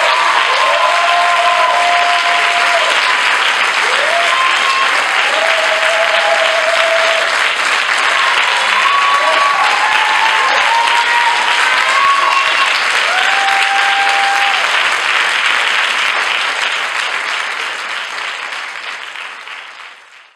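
Audience applauding after a dance performance, with short calls from the crowd over the clapping. The sound fades out near the end.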